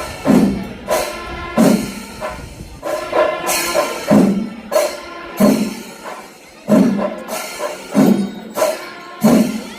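Kerala temple percussion ensemble (chenda melam) playing: heavy chenda drum strokes land roughly once a second over the constant clash of ilathalam hand cymbals, with some pitched wind tones mixed in.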